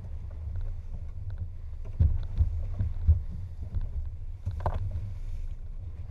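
Outboard-powered boat running through choppy sea: a steady low rumble of motor and wind on the boat-mounted microphone, with thumps as the hull hits waves, the sharpest about two and three seconds in. A brief creak comes a little past the middle.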